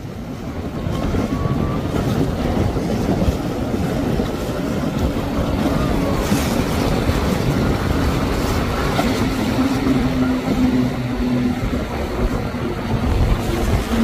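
Twin outboard motors on a center-console boat running at speed through choppy water: a steady engine drone over rushing, splashing noise, growing louder about a second in.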